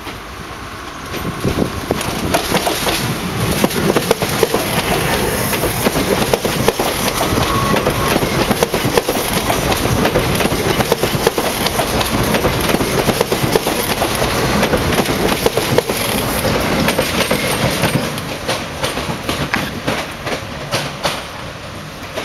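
Renfe Civia electric commuter train running past close by, its wheels clattering over rail joints and points. The sound builds about two seconds in and eases off after about eighteen seconds.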